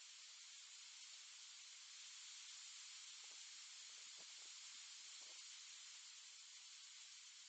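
Near silence: the steady, faint hiss of a security camera's microphone, with a few faint low sounds about halfway through.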